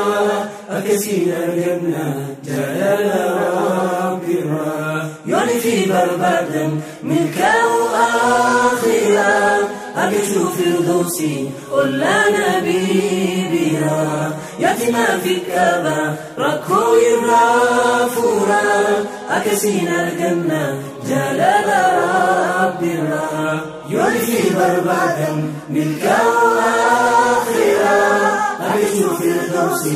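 Nasheed singing: a male voice sings long, wavering melodic phrases, with no instruments to be heard.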